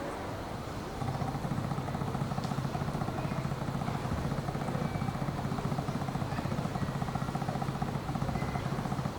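A train passing close by: a steady low rumble with a fast pulsing that comes in suddenly about a second in and holds for some eight seconds.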